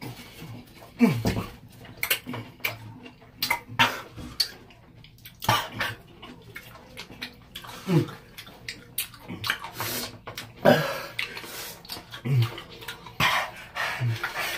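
Two people hissing and blowing air in and out in sharp, uneven breaths, with several short groans that slide down in pitch, reacting to the burn of hot peppers in their mouths.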